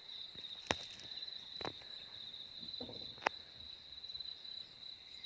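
Insects, crickets or the like, chirring in a steady high-pitched pulsing drone, with two or three sharp clicks.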